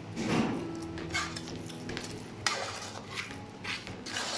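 A metal spoon stirring a thick, wet chopped chicken-liver mixture in a metal pot, scraping and clinking against the pot's sides and bottom in uneven strokes as the just-added vin santo is worked in.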